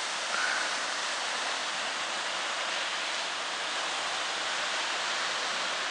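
Steady, even rushing of ocean surf breaking on the rocks below, with no single wave standing out.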